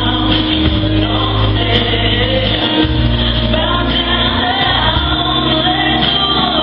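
Recorded gospel song playing: a group of voices singing together over a steady low bass line.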